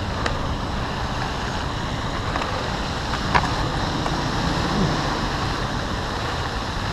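Steady rushing wind noise over the microphone and tyre hiss from riding a bicycle on a wet road, with car traffic alongside.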